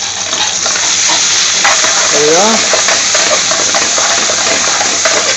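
Chopped onions and garlic sizzling steadily in hot oil in a metal frying pan while they are stirred with a spatula.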